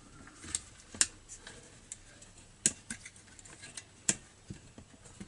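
Scattered light clicks and taps of small metal and plastic parts being handled as a throttle cable is hooked onto a trimmer carburetor, with the sharpest clicks about one, two and a half and four seconds in.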